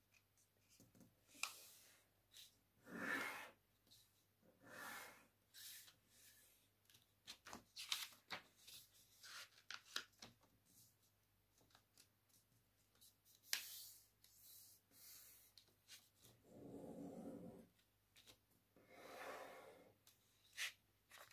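A sheet of paper being folded and creased by hand: faint, scattered rustles and short crisp crackles with quiet gaps between them, as the corners are folded in and the creases pressed flat.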